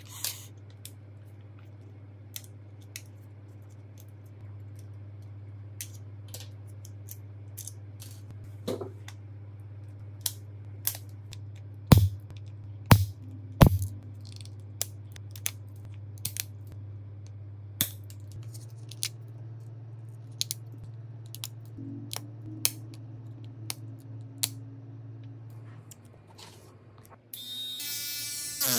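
Small tools handling phone parts on a repair bench: scattered light clicks and taps, with three sharper knocks about twelve to fourteen seconds in, over a steady low hum. Near the end a loud buzz with a wavering pitch starts up.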